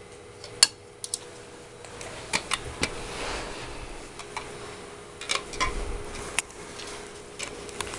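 Hard plastic stacking-cup toy pieces clacking and knocking together as a toddler handles them: scattered sharp clicks, the loudest just over half a second in.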